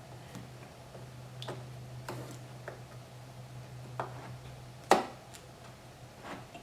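Small clicks and taps of an 8 GB DDR3 memory stick being handled and pushed into a Mac mini's memory slot, with one sharp click about five seconds in as the module seats, over a low steady hum.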